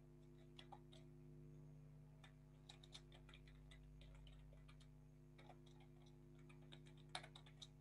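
Faint, irregular clicks of computer keyboard typing, in small clusters, over a low steady hum.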